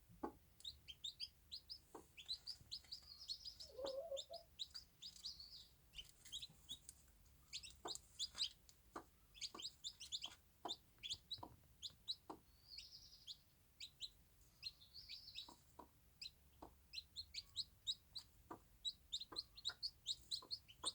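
Bantam chicks peeping in many short, high chirps, with the mother hen giving a low cluck about four seconds in. Short, sharp knocks come at irregular intervals throughout.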